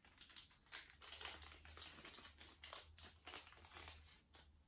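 Faint, irregular crinkling of wrapping as a small wrapped gift pouch is opened by hand.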